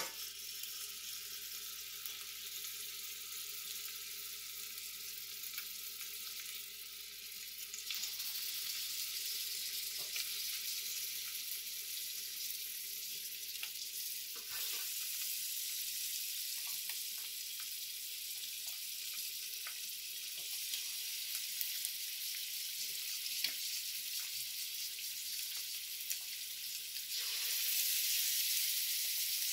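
Beef short ribs sizzling in hot oil in a stainless steel pan as they are laid in with tongs to sear. The sizzle steps up about eight seconds in and again near the end as more pieces go in, with light clicks of the tongs against the pan.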